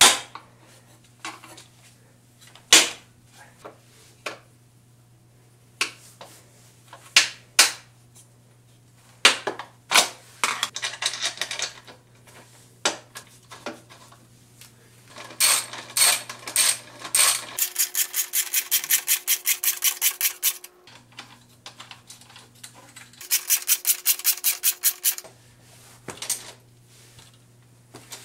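Scattered clicks and light metallic knocks from handling nuts and a socket wrench on a Toyota Prius hybrid battery's bus-bar plate, then a ratchet wrench clicking rapidly in two runs, past the middle and again later, as nuts are run down onto the module terminals.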